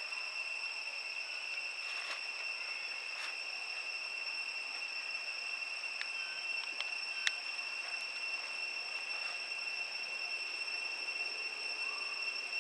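Insects trilling in a steady, unbroken high pitched chorus, with a few faint clicks and ticks, the sharpest about seven seconds in.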